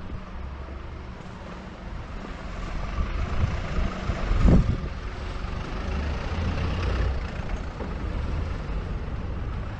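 A vehicle in motion, with a steady low rumble and noise. One loud thump comes about four and a half seconds in.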